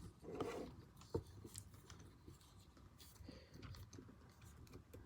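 Faint handling noises as small tripod mount parts are worked together: light rustling and scattered small clicks, with one sharper click about a second in.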